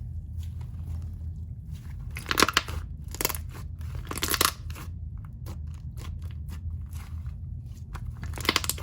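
Slime being squished and pressed by hand, with four short clusters of crackling, popping air pockets over a steady low hum.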